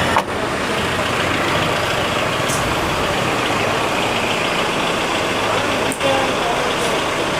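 A vehicle engine idling: a steady, even running noise, broken by two brief dips, one about a quarter second in and one near six seconds.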